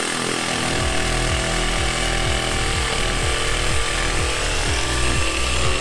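DeWalt 18V cordless reciprocating saw running continuously as it cuts through an insulated box wall panel with a foam core and plywood edge.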